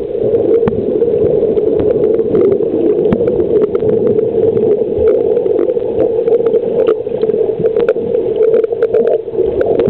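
Muffled underwater noise picked up by a camera below the surface: a steady, loud hum-like rush with many faint clicks and crackles scattered through it.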